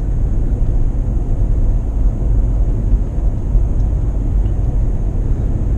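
Steady low road and tyre rumble inside the cabin of a Mitsubishi Outlander PHEV driving at about 70 km/h with a trailer in tow.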